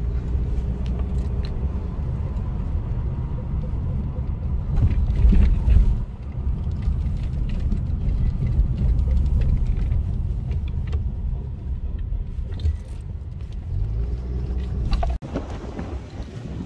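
Car on the move heard from inside the cabin: a steady low road rumble, with a louder swell about five seconds in and light rattles.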